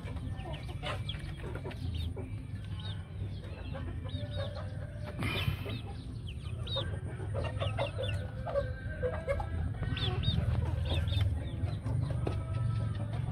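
A flock of penned chickens clucking, with many short high calls throughout, over a low steady rumble. There is a brief rustle about five seconds in.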